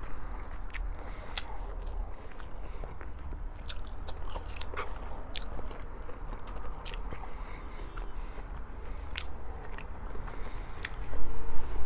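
Close-miked chewing and biting of food, with wet mouth clicks scattered irregularly, and a louder handling noise near the end.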